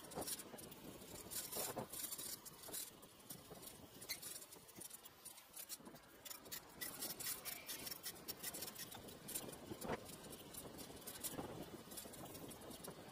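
Irregular small clicks and rattles of a moving bicycle over a faint hiss, picked up by a camera on its handlebars, with one sharper click about ten seconds in.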